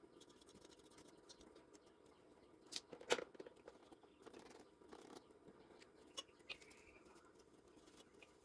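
Faint scratching and light clicks of hands handling PC parts during cleaning, with two louder sharp clicks about three seconds in, over quiet room tone.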